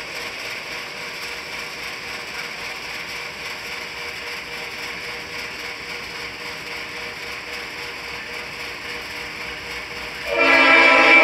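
Approaching locomotive's air horn: over a steady background, a loud horn chord of several held tones starts about ten seconds in and carries on to the end.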